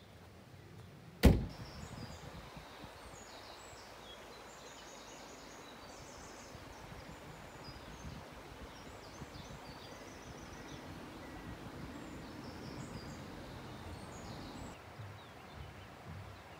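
Birds singing in woodland: short, repeated high chirps and phrases over a steady outdoor background hiss. A single sharp thunk sounds about a second in.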